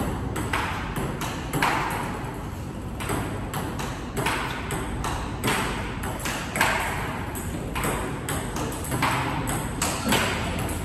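Table tennis rally: the celluloid ball clicking repeatedly off the rackets and the table, a few sharp ticks each second, as topspin strokes are blocked back with a frictionless Donic Alligator Anti 1.0 mm anti-spin rubber.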